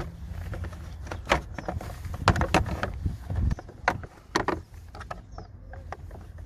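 Hand work on a car's plastic engine-bay parts while taking a cover off: a string of sharp, irregular clicks and knocks, the loudest bunched a couple of seconds in, over a low rumble.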